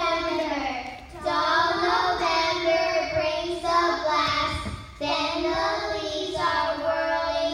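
Second-grade children singing a song together, in several held phrases with brief breaks between them.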